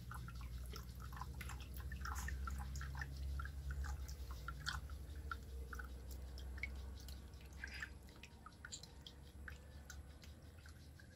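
Old radiator coolant dripping from the opened drain plug into a plastic tub: a scatter of small irregular drips as the radiator drains, over a low background rumble that fades after about the middle.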